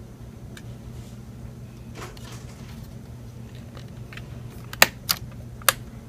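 Precision screwdriver working a small screw into the optical-bay hard-drive adapter of an open MacBook Pro: scattered small metal clicks and taps, with three sharp clicks near the end, over a steady low hum.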